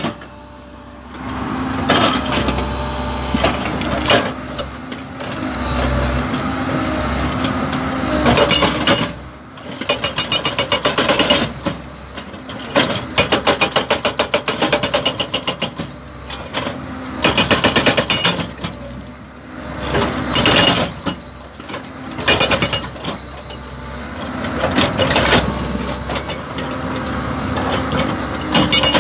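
SHS S50 hydraulic rock breaker on a Komatsu PC130 excavator hammering rock in repeated bursts of rapid blows, each burst about one to two seconds long. The excavator's diesel engine runs between the bursts.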